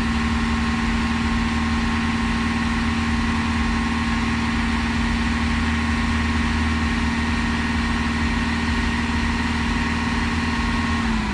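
Audi Q7 3.0 TDI CVMD V6 diesel engine held steadily at raised revs, about 2000 rpm, for a timing-chain tension check, with a steady even drone; right at the end the revs start to fall as the pedal is released.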